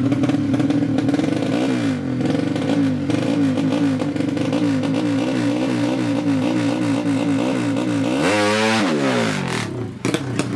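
Drag motorcycle's 200cc horizontal-cylinder engine held on the throttle, its pitch wavering up and down in quick repeated blips, then revved hard in a steep rise about eight seconds in before it drops away near the end.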